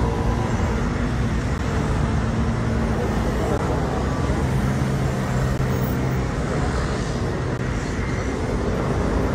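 City street traffic noise: a steady rumble of passing vehicles with a low engine hum, and people talking.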